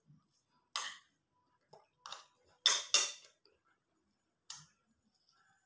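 Eating by hand from a bowl: about five short, sharp clicks and scrapes of fingers and bowl, with quiet between them and the loudest two close together about three seconds in.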